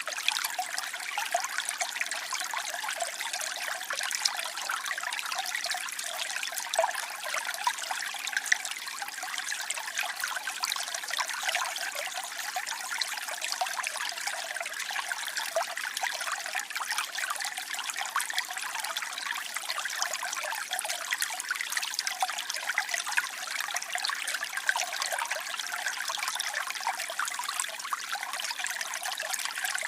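Waterfall: falling water splashing in a steady rush, full of fine crackling splashes and with little deep rumble.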